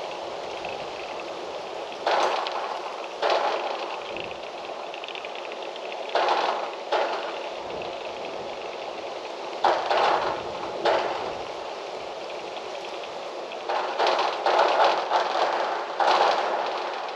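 Wind blowing: a steady rush broken by several sudden, louder gusts, each lasting about a second.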